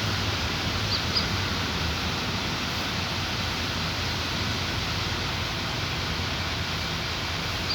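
Steady outdoor background noise, an even hiss, with two brief high chirps about a second in.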